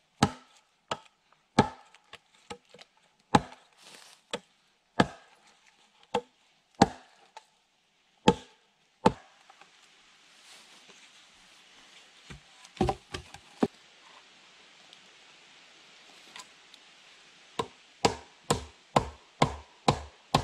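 Axe blows on wood, chopping: single strikes about a second apart at first, a quieter stretch with a few lighter hits, then a fast steady run of about two blows a second near the end.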